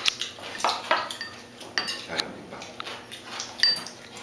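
Tableware clinking at a meal: metal chopsticks and cutlery tapping ceramic plates and bowls in irregular clicks, a few with a short ringing note. The sharpest clink comes near the end.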